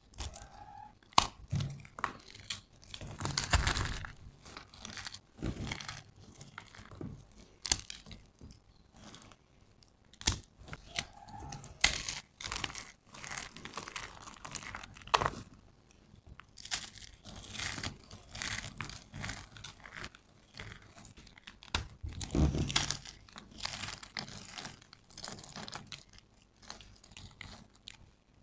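Dry soap cubes and thin soap plates crunching and crumbling between fingers: irregular crackles with sharp snaps, and handfuls of loose soap chips rustling.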